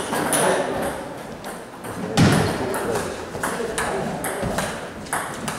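Table tennis rally: the ball clicking sharply off the bats and the table in quick back-and-forth succession, with a heavier thump about two seconds in.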